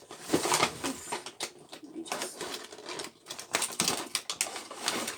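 Headphone box being unpacked: a quick run of small clicks, taps and rustles as packaging and parts are handled and taken out.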